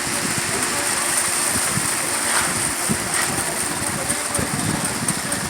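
Diesel engine of a concrete truck running steadily.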